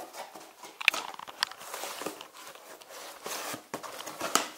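Cardboard box packaging being handled and rummaged through: irregular rustling and scraping of cardboard, with a few sharp knocks.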